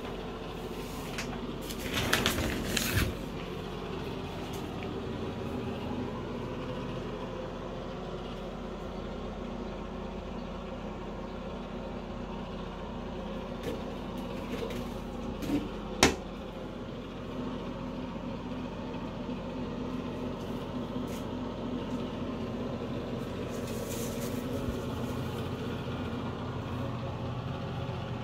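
A steady low mechanical hum, with a quick cluster of knocks and clatters about two seconds in and a single sharp click at about sixteen seconds.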